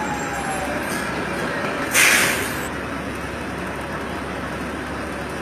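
Armoured military vehicle running as it passes, with a sudden sharp air-brake hiss lasting under a second about two seconds in.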